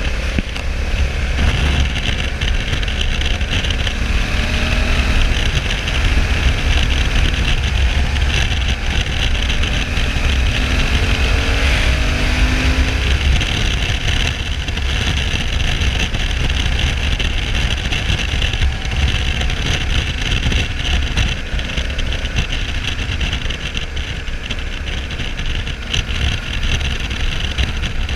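Steady wind rush and low buffeting on the onboard camera of a Honda Africa Twin 1100 (CRF1100L) motorcycle cruising at about 90 km/h, with the bike's parallel-twin engine running underneath.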